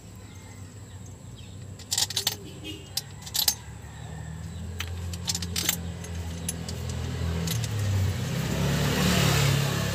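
A few sharp metallic clinks as engine parts are handled. Then a motor vehicle's engine hum grows steadily louder, as if it is approaching and passing, and is loudest near the end.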